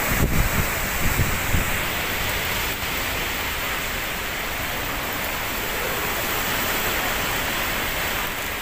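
Typhoon wind and heavy rain, a steady rushing hiss, with wind buffeting the microphone in the first second or so.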